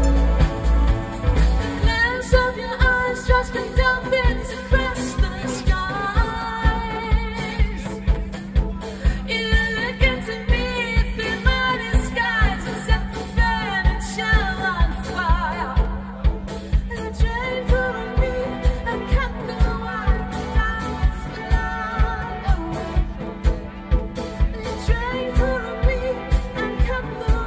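Live pop band playing a passage of the song with no lyrics: a steady drum beat about twice a second under a wavering, wordless melody line.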